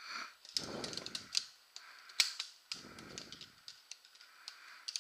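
Metal poles of an Alite Monarch camping chair frame clicking and clinking as they are handled and unfolded, a quick irregular run of sharp clicks with the sharpest about two seconds in, and a couple of short spells of duller handling noise between.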